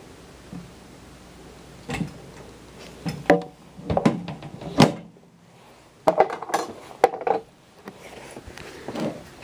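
A series of irregular knocks and thumps on a hard surface, some with a short ringing tone, coming in clusters with quiet gaps between.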